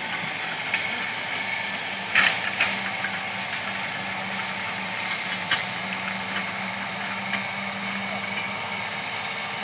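Horse-drawn rotary hay tedder at work tedding second-cut hay: a steady mechanical hum with a few sharp metallic clanks and rattles, the loudest a little over two seconds in.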